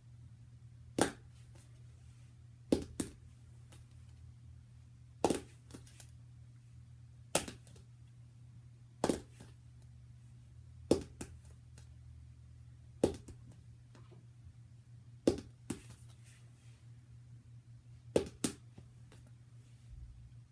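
Plastic marker being flipped and knocking down on a hardcover book, again and again, about once every two seconds, sometimes with a quick second knock as it bounces or tips over: repeated attempts at a full marker flip that don't stay standing.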